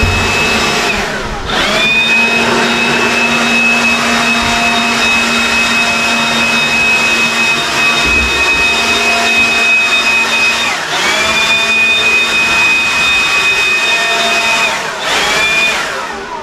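DeWalt cordless handheld blower running at full speed with a steady electric whine. It is let off and run back up about a second in and again later, then winds down near the end after a short last burst.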